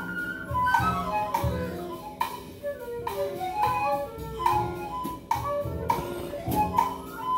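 Free-form ensemble music: a pan flute plays a wandering melody of held notes over irregular drum kit and cymbal hits.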